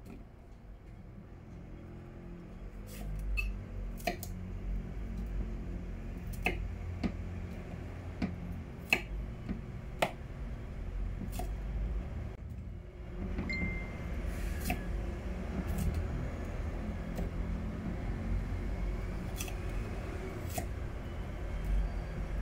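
A kitchen knife cutting bell peppers on a wooden cutting board: irregular, sharp knocks as the blade meets the board, about a dozen, over a low steady hum.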